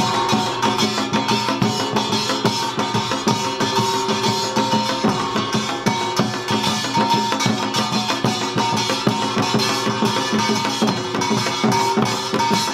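Samulnori percussion ensemble playing an utdari rhythm seated: small brass kkwaenggwari gongs clanging in fast, dense strokes and janggu hourglass drums and buk barrel drums beating under the sustained wash of a jing gong.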